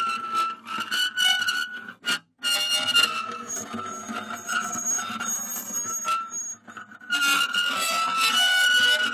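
Steel rubbing on steel in long, high-pitched squeals that waver slightly in pitch, with a brief break about two seconds in and another near seven seconds.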